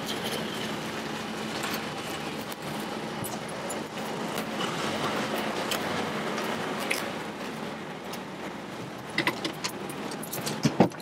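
Steady background noise, then keys jangling with a few sharp clicks near the end.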